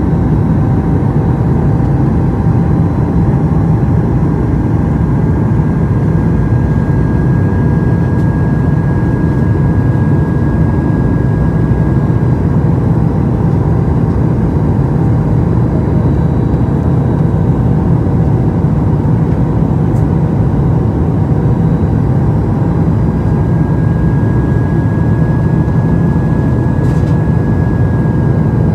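Steady cabin noise inside a Boeing 737 MAX 8 airliner on descent: an even, low roar of airflow and the CFM LEAP-1B turbofan engines, with a few faint engine tones that drift slightly in pitch.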